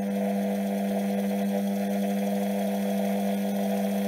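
Indesit washing machine universal motor (brushed, with commutator) running free on its bench mount with a steady, even hum.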